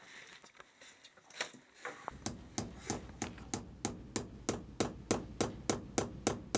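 Hammer driving a nail into a mud-brick wall: after a couple of faint knocks, steady sharp blows begin about two seconds in, about three a second.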